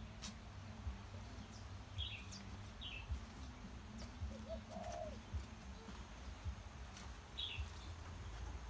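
Birds calling: a couple of short, high chirps about two seconds in, a lower call around the middle, and another chirp near the end, over soft low thuds from walking.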